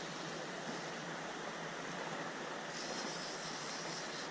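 Steady rush of stream water flowing over riffles.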